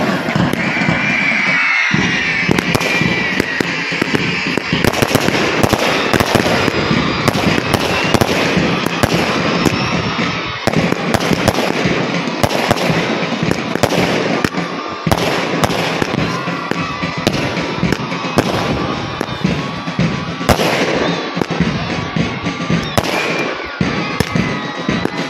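Aerial fireworks bursting one after another in rapid, irregular bangs and crackles, with music playing underneath.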